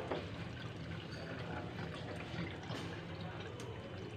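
Water running in a thin steady stream from an Enagic Kangen water ionizer's outlet hose into a glass and a stainless steel sink.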